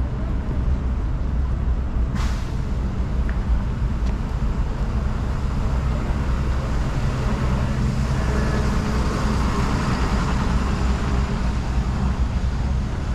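Motor vehicle traffic: a steady low engine rumble, with one sharp, short hiss about two seconds in and a swell of road noise a little past the middle.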